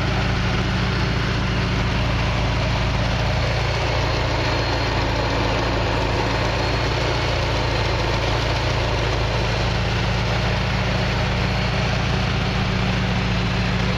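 Supercharged 5.7-litre LS6 V8 of a 2002 Corvette Z06 idling steadily, heard close up in the open engine bay.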